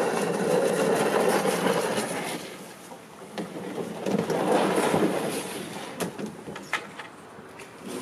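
Wind rushing over the microphone at an open lakeshore, strongest in the first couple of seconds and then easing, with a few sharp knocks near the end as the canoe is pushed off.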